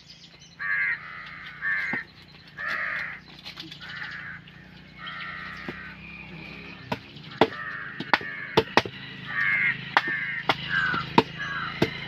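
Crows cawing over and over, harsh calls of about half a second each. From about seven seconds in, heavy knives chop fish on wooden blocks, sharp knocks about twice a second.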